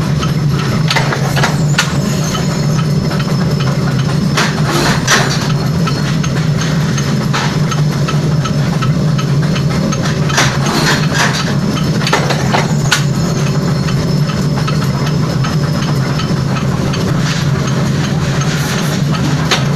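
Forging hammer/power press machinery running with a steady low drone, with scattered light metallic clanks and knocks as hot steel is handled at the die.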